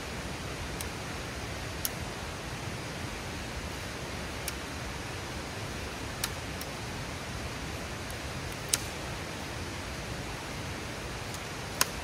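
Steady rushing of a mountain river, with a few sharp clicks scattered through it, the loudest about two-thirds of the way in and near the end.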